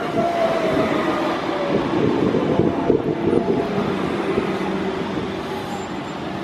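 London Underground 1992 Stock train pulling into the platform and slowing. Its whine falls in pitch in the first second, over the steady rumble and rattle of wheels on the rails.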